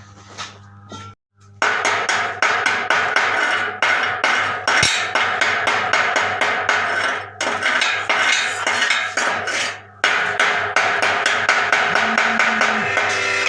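Stick (arc) welding arc crackling and sputtering steadily, broken off briefly twice.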